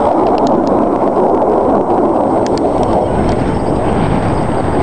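Wind buffeting the camera microphone: a loud, steady rushing rumble with no engine note in it, and a few faint ticks.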